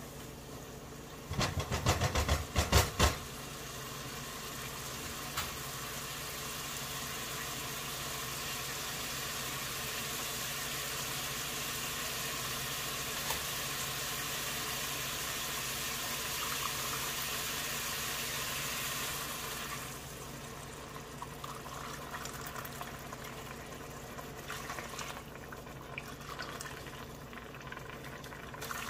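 Biryani cooking in a pot: a quick run of loud knocks near the start, then a steady hiss for about sixteen seconds that drops away to quieter bubbling and crackling.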